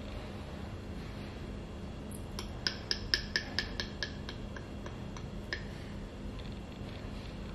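A quick run of about ten sharp chirping clicks, roughly four a second, fading toward the end, with one more a second later, over a low steady background hum.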